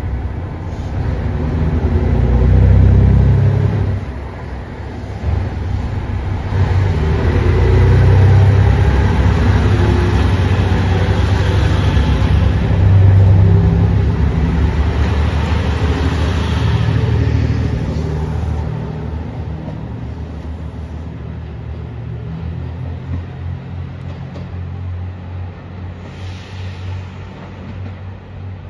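JR Shikoku 2700 series diesel limited-express railcar pulling out of the station: its diesel engines run up loud as the train accelerates and the cars roll past, then the sound fades as it draws away.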